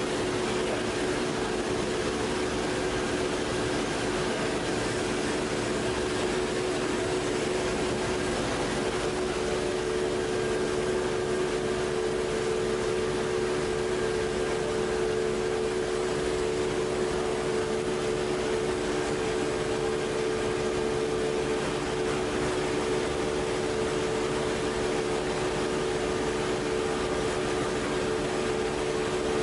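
Strapping-line winder machinery running with a steady hum, several steady tones over a wash of mechanical noise, as plastic strap winds onto the spools.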